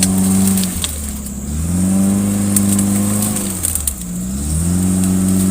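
Off-road 4x4's engine revved hard and held, dropping back and revving up again, three pushes in a row.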